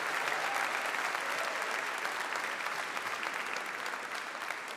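Audience applauding, a dense patter of clapping that dies down slightly toward the end.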